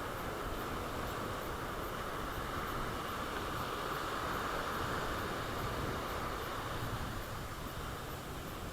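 Steady rush of sea surf and wind on the microphone.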